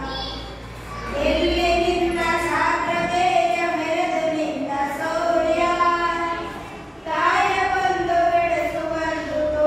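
Schoolchildren singing a Kannada patriotic song (desha bhakti geethe) unaccompanied, in long held phrases with short breaks about a second in and about seven seconds in.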